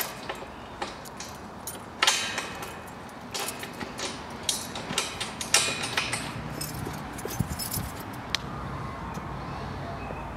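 Keys jangling and clicking against a padlock on a metal gate as it is unlocked: a run of sharp metallic clicks and rattles from about two seconds in until about eight seconds in.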